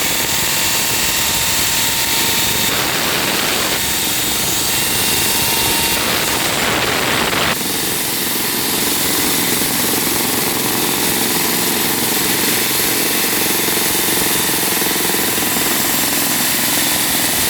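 Demolition breaker hammering continuously on concrete, a dense, rapid, steady hammering with a brief change in tone twice.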